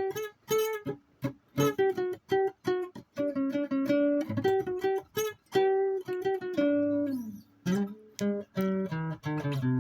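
Music on a guitar: plucked notes in quick short phrases broken by brief silences, with a note sliding down in pitch about seven seconds in.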